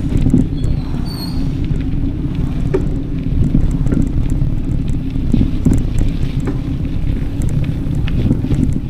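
Wind buffeting the action camera's microphone while riding a bicycle: a steady low rumble. Faint scattered clicks sit underneath, and a few brief high chirps come about a second in.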